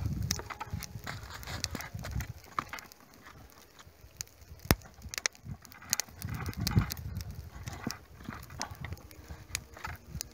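Charcoal fire in a small portable grill crackling and popping under sausages, a scatter of sharp clicks. Low rumbling comes near the start and again about six seconds in.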